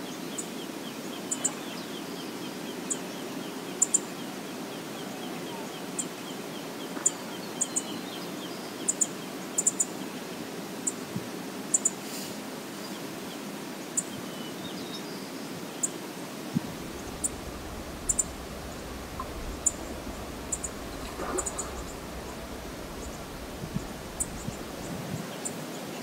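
Steady rush of flowing river water, with short high chirps every second or so. A low rumble joins from about the middle and drops out near the end.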